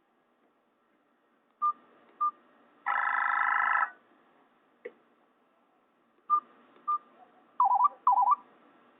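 A Nokia E72 ringtone playing from a Nokia 216's small loudspeaker: sparse electronic beeps, a buzzy chord lasting about a second, two more beeps, then two quick warbling chirps near the end.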